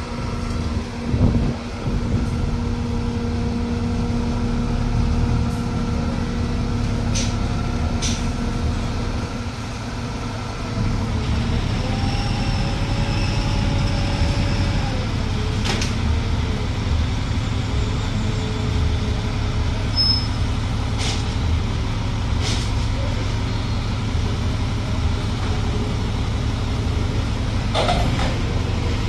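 A forklift and a small Isuzu flatbed truck running their engines at close range, a steady drone with a low rumble. There are a few short, sharp knocks through it.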